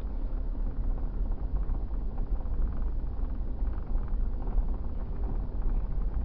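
Low, steady rumble of a car driving slowly over a rutted dirt track, heard from inside the cabin: tyres, suspension and engine.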